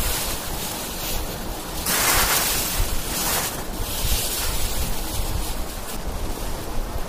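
Dry fallen leaves rustling and crackling as armfuls are scooped up and heaped onto a shelter roof, swelling louder about two seconds in and again about three and a half seconds in. Wind buffets the microphone with a low rumble underneath.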